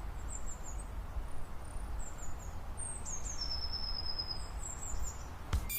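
Small birds chirping in short, high, thin calls, with one long steady whistled note about three seconds in, over a low outdoor rumble.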